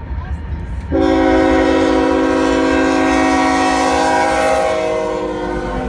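Norfolk Southern locomotive's air horn sounding one long, steady chord of several notes, starting suddenly about a second in and lasting about five seconds, over the low rumble of the train.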